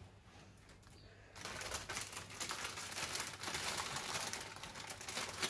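Plastic crisp packet crinkling and rustling as it is handled, a dense crackle that starts about a second and a half in and runs on.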